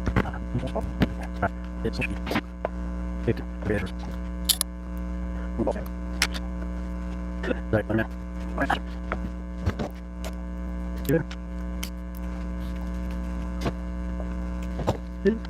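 Steady electrical mains hum with irregular light clicks and knocks from plexiglass squares being handled and glued together on the bench.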